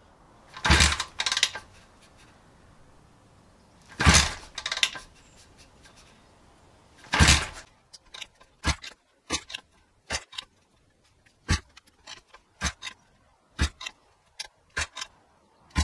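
Cold YX140 pit bike engine being kick-started without catching: three kicks about three seconds apart, each a brief mechanical clatter as the engine turns over. Then a run of short, sharp clicks and taps.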